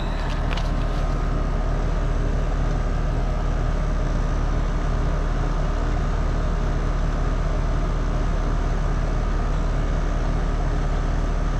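Steady low machine hum with a constant drone, unchanging throughout.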